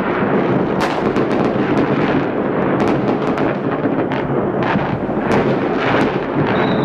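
Many fireworks going off at once: a continuous rumble of overlapping bangs with frequent sharp cracks. A high whistle starts near the end and falls slightly in pitch.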